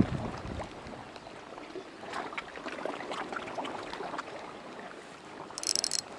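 Light water lapping at the shore rocks, with faint ticks. Near the end a Shimano Nasci 2500 spinning reel starts to be cranked: a high whirring that comes in short spurts as the lure is retrieved.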